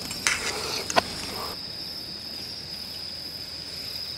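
Insects chirring in the grass on an autumn night, one steady high-pitched trill throughout. A couple of light clicks and a short rustle in the first second and a half.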